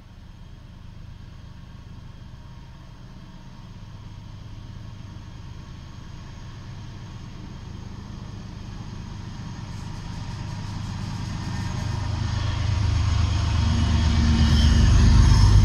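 Freight train locomotive approaching and passing beneath: its low engine rumble grows steadily louder and is loudest near the end.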